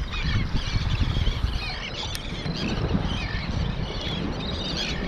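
A large flock of seabirds calling over and over, many short overlapping cries, over a steady low rumble of wind and surf.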